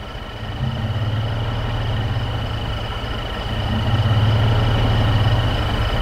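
Truck engine idling steadily, a little louder in the second half. A thin, steady high-pitched tone runs over it.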